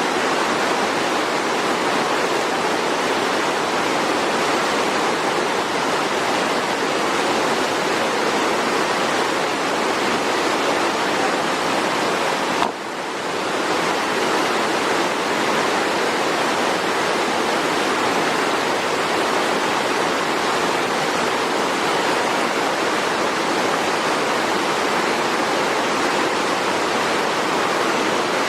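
Steady, even rush of a waterfall and river. There is a brief click and dip in level about halfway through.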